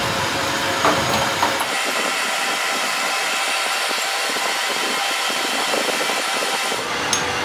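Steady machine noise in a truck repair workshop, with a few light clicks or knocks about a second in and another near the end.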